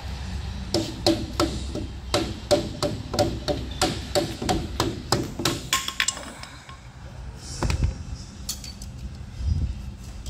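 Rubber mallet striking the metal dust cap on a trailer wheel hub to knock it off: a run of about fifteen quick, ringing blows over five seconds, then one heavier thump a little later.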